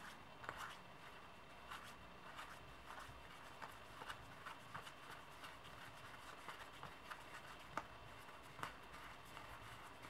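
Faint, irregular clicks and soft slides of card-game cards being handled and leafed through one at a time.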